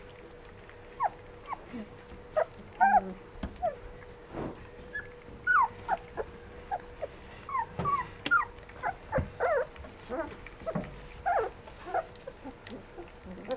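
Rough collie puppies giving many short, high-pitched squeaks and whimpers in quick, irregular succession, some sliding up or down in pitch.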